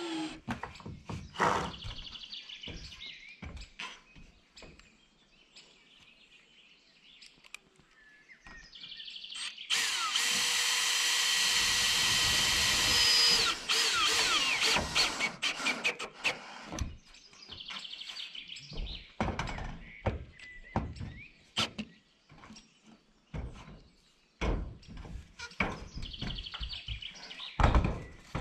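Cordless drill driving screws through profiled steel roofing sheet, with one long run of the drill about ten seconds in, lasting some four seconds. Scattered knocks and clicks on the metal panels come before and after it.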